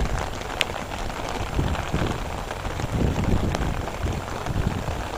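Heavy rain falling: a steady hiss with a low rumble underneath and a couple of sharp clicks, one early and one past the middle.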